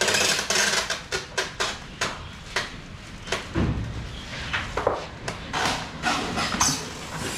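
A run of irregular sharp knocks and clatters, with a heavier dull thud about three and a half seconds in.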